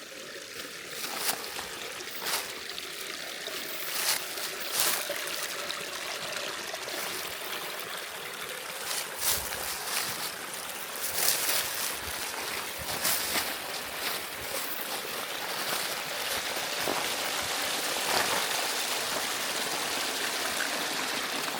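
Small rocky stream running and trickling steadily over rocks, with a few short clicks scattered through it.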